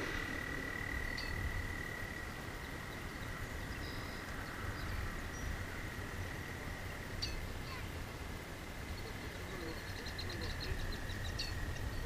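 Frogs calling in a steady, unbroken high trill, over a low rumble of wind and water.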